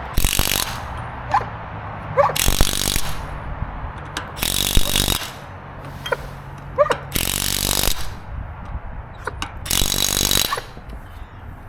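Pneumatic or cordless impact wrench driving lug nuts onto a wheel, five rattling bursts about two and a half seconds apart, one per lug nut.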